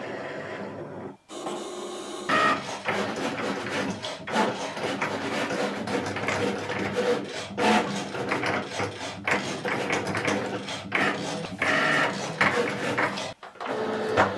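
Cricut Maker 3 cutting machine running a cut on iron-on vinyl. Its motors whir and change pitch as the carriage and rollers shuttle the sheet back and forth. It stops about a second before the end, followed by the rustle of the vinyl sheet being handled.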